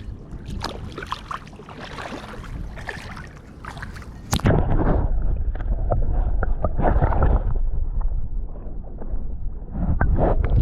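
Marina water sloshing and gurgling with scattered small clicks and splashes. A sharp knock comes about four seconds in, after which a heavy low rumble takes over.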